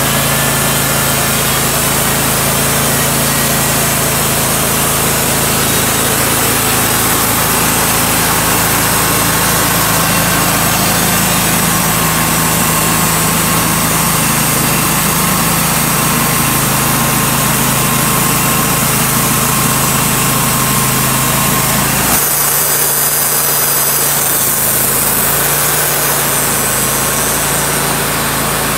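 Wood-Mizer LT35 bandsaw mill running steadily, its engine under load as the band blade saws through a walnut log. About three-quarters through, the sawing sound stops abruptly and the engine runs on steadily.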